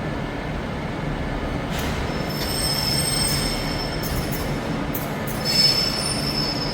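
Train moving slowly through the station over a low steady rumble, its wheels squealing on the rails in a thin high tone that sets in about two seconds in and comes back louder near the end.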